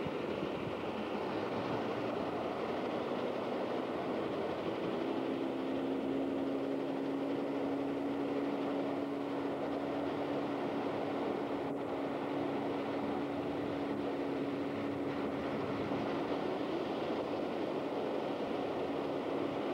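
A steady motor drone inside a moving vehicle, with a steady hum that sets in about five seconds in and holds.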